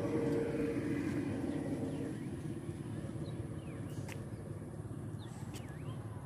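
Riverside outdoor ambience: a steady low rumble, with a few short bird chirps in the second half.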